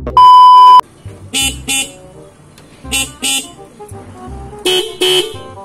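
Hella Classic disc horn, newly fitted to a Honda Vario 125 through a relay, honking in short double toots, three pairs about a second and a half apart, sounding like a car horn. A loud steady high beep sounds for under a second at the start, and background music runs underneath.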